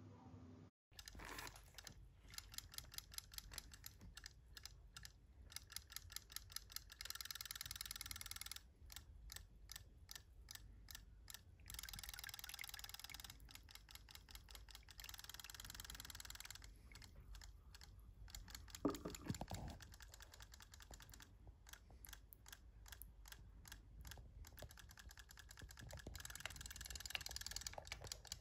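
Faint runs of quick light clicks, like typing on a computer keyboard, with a few short stretches of steady hiss and one brief louder sound about two-thirds of the way through.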